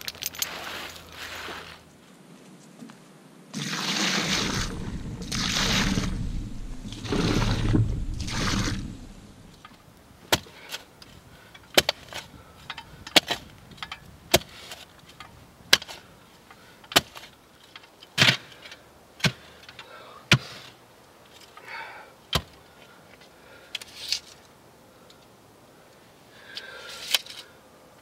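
Manual post hole digger being driven into the ground again and again: a sharp chunk of the blades striking the soil a little more than once a second, about ten strikes. Before the digging, several seconds of loud rushing noise in three gusts.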